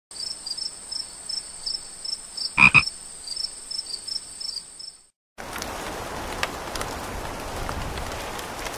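Frogs croaking over a high, steady trill with chirps about three times a second; two loud croaks come about two and a half seconds in. After a short gap around five seconds, a steady hiss with faint ticks follows.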